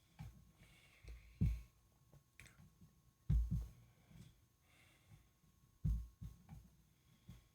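Several dull low thumps at irregular intervals, some in quick pairs, over a faint steady thin tone.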